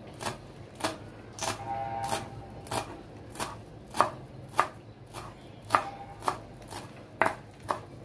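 Knife chopping fresh coriander (cilantro) leaves on a board, in steady regular strokes about two a second.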